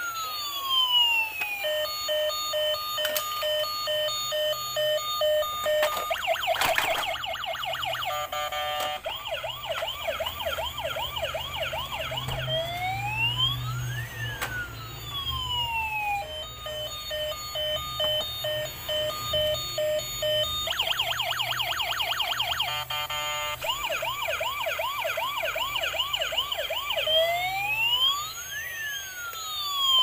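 Battery-operated toy fire truck's electronic siren sound effect through its small speaker. It cycles through a falling-and-rising wail, a run of steady electronic beeps and a fast warbling yelp. The whole pattern plays twice.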